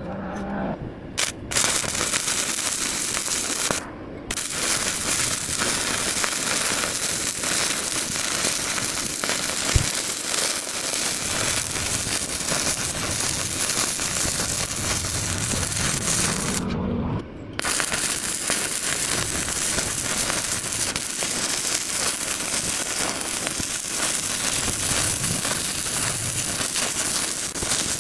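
Stick-welding electrode arc burning steadily, a dense even crackle, cutting out briefly about four seconds in and again near seventeen seconds before it is struck again.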